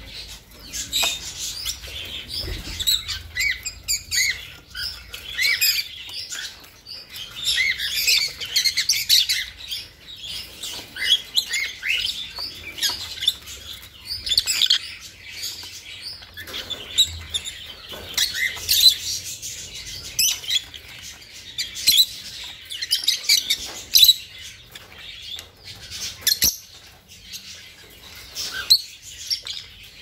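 Budgies chirping and chattering in many quick, high, short calls, with scattered light clicks among them.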